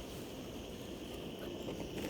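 Wood campfire burning down to embers, a steady hiss with a few faint crackles late on.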